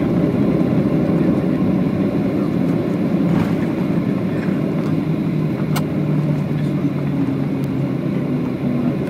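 Jet airliner rolling out on the runway after touchdown, heard from inside the cabin: a loud, steady rumble of engines and wheels on the runway that eases slightly, with a low engine hum in the second half. There are two sharp rattles, about three and a half and six seconds in.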